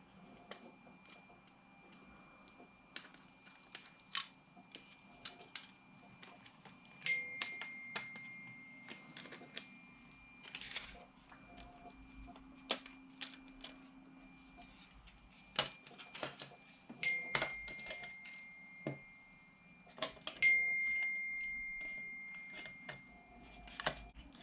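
Disassembly of an Xbox 360 DVD drive by hand: scattered clicks and taps of tools and fingers on its plastic and metal parts. Three times the thin metal casing rings with a bright tone that fades over a few seconds.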